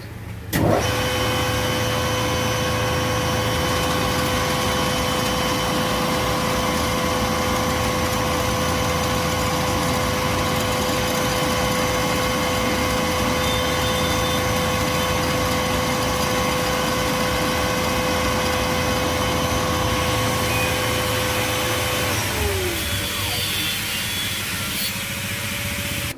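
Alternator test bench spinning a rebuilt Lucas 24 V 100 A alternator. It starts with a sudden jolt less than a second in, then runs with a loud, steady whine made of several held tones. About four seconds before the end the main tone drops in pitch and a lower hum carries on. This is the charging test, in which the alternator puts out about 27 V, a healthy charge.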